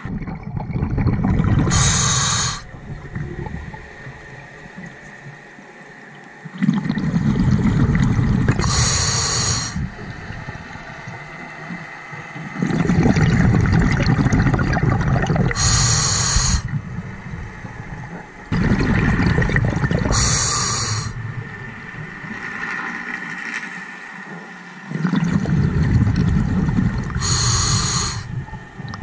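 Scuba diver breathing through a regulator underwater: five slow breaths about six seconds apart, each a low bubbling rumble with a brief high hiss near its end.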